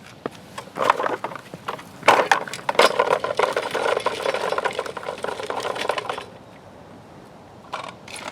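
Toy construction truck rattling and scraping as it is pushed around, a dense run of rapid clicks lasting about five seconds, then a short burst again near the end.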